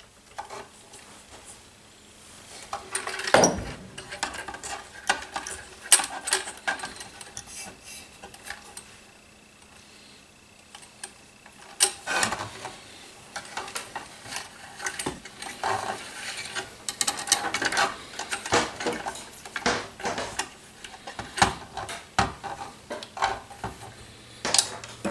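Irregular clicks, taps and scraping from hands handling a T-Rex 470L model helicopter's frame and tail boom while a wire and the tail drive belt are pulled through the boom.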